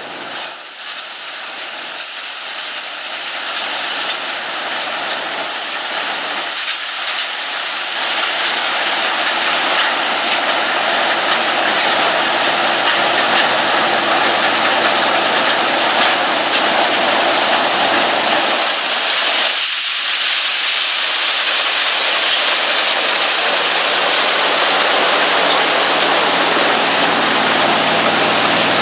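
John Deere 55 EB combine running with its gasoline engine while threshing soybeans: a steady mechanical rush that grows louder over the first ten seconds or so, then holds.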